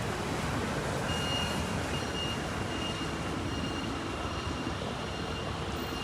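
Steady outdoor rushing noise of wind and sea. From about a second in, a high electronic beep repeats roughly once a second, each beep long with short gaps between.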